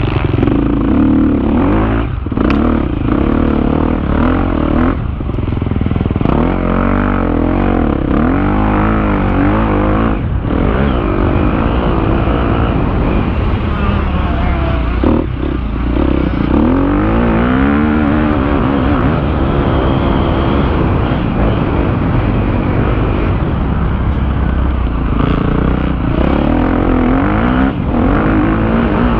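250 cc KTM motocross bike's engine heard from the rider's helmet, its pitch rising and falling again and again as it revs up, lets off and shifts around the track.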